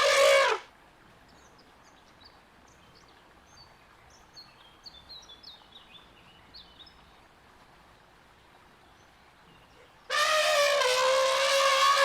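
Elephant trumpeting. A brassy trumpet call ends about half a second in, followed by a long quiet stretch with faint bird chirps. Another long trumpet blast starts about ten seconds in.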